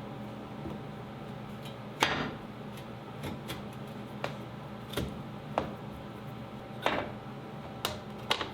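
Sharp clicks and light knocks at irregular intervals, about eight in all, the loudest about two seconds in: thin plasma-cut steel pieces being set into a routed pocket in a wooden door. A steady low hum runs underneath.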